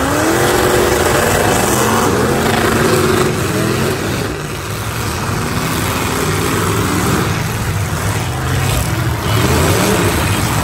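Several demolition-derby car engines revving hard at once, their pitch climbing as they accelerate at the start and again near the end.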